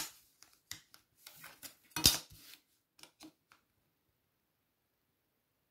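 Clear plastic set squares knocking and sliding against each other on a drawing board: a few light clicks, with one sharp clack about two seconds in.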